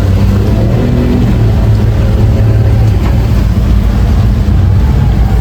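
Speedboat outboard motor running steadily under way: a low, even engine drone with a rush of noise over it.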